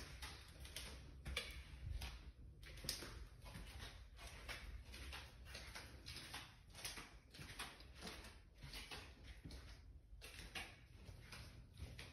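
Faint footsteps on a hard floor, a steady walking rhythm of about two or three steps a second.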